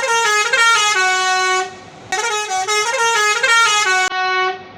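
Multi-tone musical bus horn ("telolet") playing a short tune of several stepped notes, twice, the second time cut off near the end.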